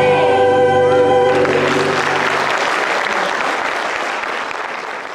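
Dance music ends on a long held chord, and audience applause breaks in about a second in. The applause then fades away toward the end.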